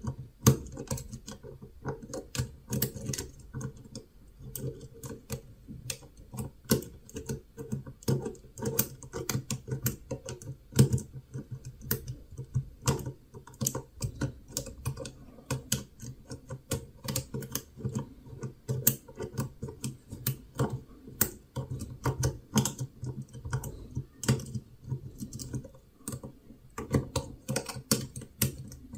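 A metal lock pick and tension wrench click and scrape inside the keyway of a CISA profile cylinder as a medium-depth hook works the pins: single-pin picking. The small irregular clicks come several times a second throughout.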